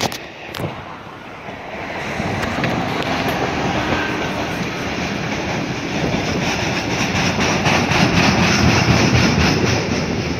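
Electric freight train passing close by: an electric locomotive hauling a long rake of enclosed car-carrier wagons. The rolling noise builds over the first few seconds, and the wheels set up a steady clickety-clack over the rail joints that is loudest near the end.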